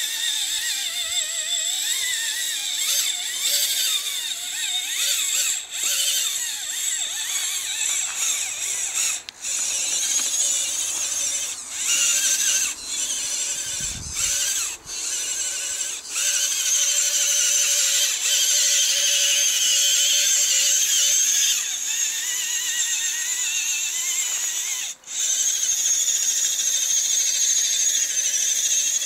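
Radio-controlled scale truck's electric motor and gears whining, the pitch rising and falling with the throttle and cutting out briefly a few times as it crawls through creek water.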